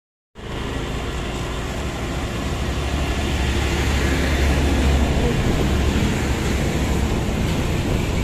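Steady rush of wind and road noise from a moving vehicle, with a low engine rumble that eases about five seconds in.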